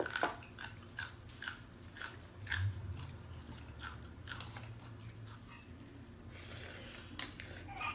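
People eating noodle soup with raw vegetables up close: a string of crisp bites and crunches, about one or two a second, with a short slurp of noodles near the end.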